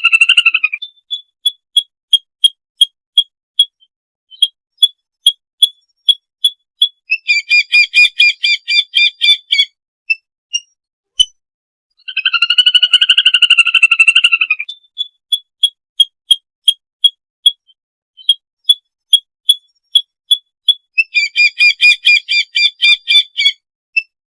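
Lesser whistling duck calls from a flock-calling lure recording, repeating in a loop. A long wavering whistled call about three seconds long, then a run of short clipped whistle notes at two or three a second, then a quick burst of chattering whistles, the sequence coming round again about every fourteen seconds.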